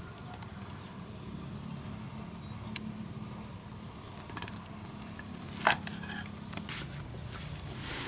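Steady high-pitched insect drone, with a few light clicks and knocks of a utensil and a small metal pot as the pot is tipped to drain its water; the sharpest knock comes a little before six seconds.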